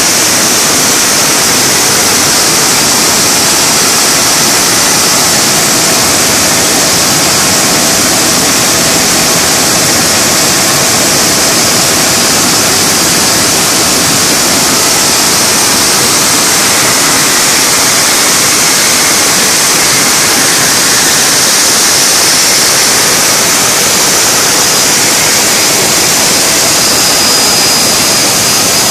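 Joy EB compressor running on a test bench: a steady, loud rushing noise, hissing most in the high range, with a faint high whine coming in near the end.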